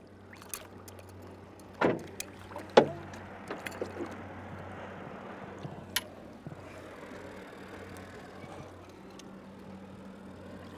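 Boat motor running with a steady low hum, joined by a few sharp knocks, the loudest about three seconds in, and a wash of water sloshing as a hooked chinook salmon is worked to the landing net beside the boat.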